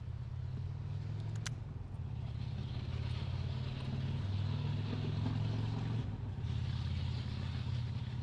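A steady low motor hum with a rushing hiss that swells twice, about two and a half seconds in and again near the end.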